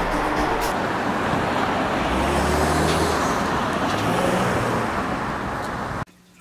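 Street traffic: cars driving past with engine and tyre noise, cutting off suddenly near the end, leaving a faint steady hum.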